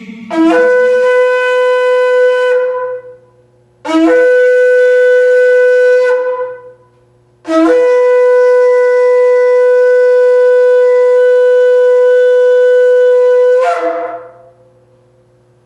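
Shofar blown in three blasts: two of about two seconds, then one long held blast of about six seconds. Each blast starts on a brief low note and jumps up to a steady higher note.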